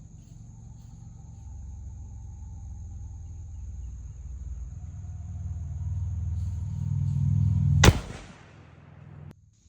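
A low rumbling noise building up, then a single loud gunshot about eight seconds in, with a short echoing tail, fired at a ceramic armor plate under test.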